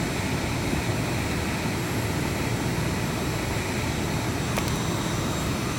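Heat gun running, a steady blowing hum with a faint high whine. There is a single light click about four and a half seconds in.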